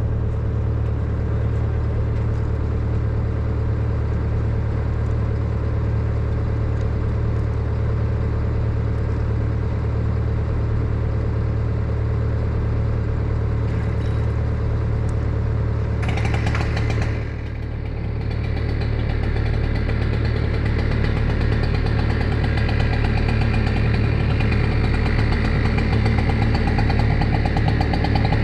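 A heavy machine's engine runs steadily. About two thirds of the way in there is a short hiss, and after it the engine runs harder and gradually grows louder.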